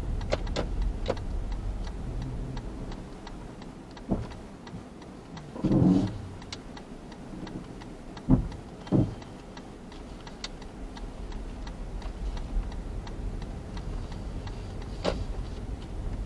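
Car turn signal ticking steadily inside the cabin over low engine and road hum, with a few short, louder knocks near the middle.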